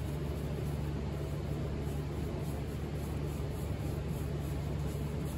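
Steady hum of a running motor with an even rush of air, like a fan or blower, unchanging throughout.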